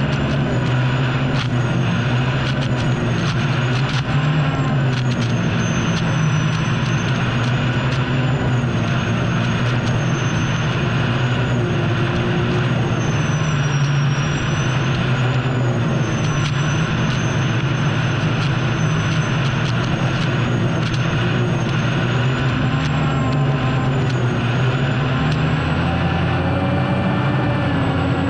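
An unlimited hydroplane's Lycoming T55 turbine engine running at racing power, heard from onboard. It makes a steady high whine that wavers slightly in pitch, over a loud low rumble, with scattered short knocks.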